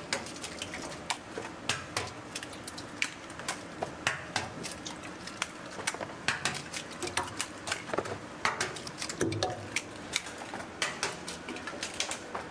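A cook's metal utensils clinking and tapping against cookware, with quick, irregular clicks several times a second while eggs are worked.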